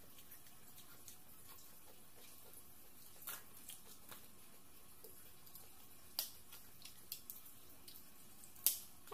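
Light clicks and taps of grilled capiz (windowpane oyster) shells being handled and pried open by hand, a handful of separate clicks with the sharpest near the end.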